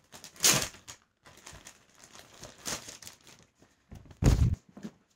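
Plastic t-shirt packaging being torn open and crinkled while the shirt is pulled out, in several short rustling bursts, with a louder bump about four seconds in.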